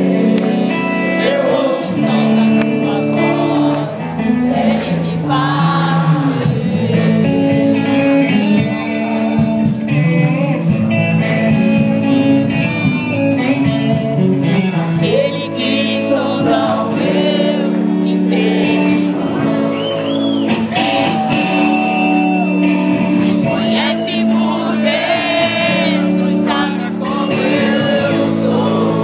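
Live band music with singing and electric guitars, heard from among the audience in a large hall.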